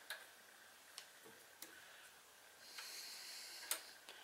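Faint, sharp metallic clicks of a hand tool on the snow thrower engine's crankshaft pulley as its set screws are loosened, about four in all, with a short scrape just before the last click.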